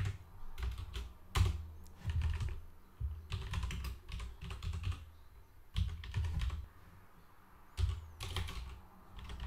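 Typing on a computer keyboard: clusters of keystrokes with short pauses between them, as a line of code is entered.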